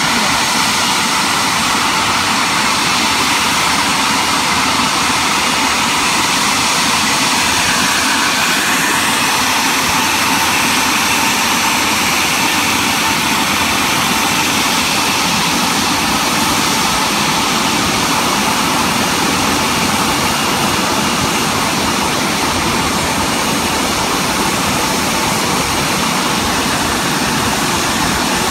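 Embraer E170's twin turbofan engines running at idle power as the jet taxis slowly, a steady jet rush and whine.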